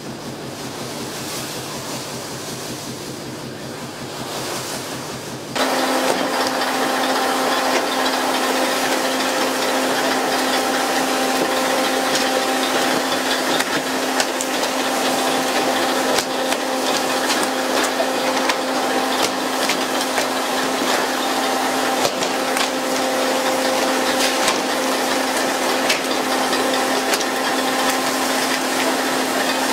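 Deck noise of a pole-and-line tuna fishing boat: a steady machine hum at one fixed pitch over a hiss of rushing water, with frequent sharp knocks and clicks. It starts suddenly about five seconds in, taking over from a quieter, even rumble.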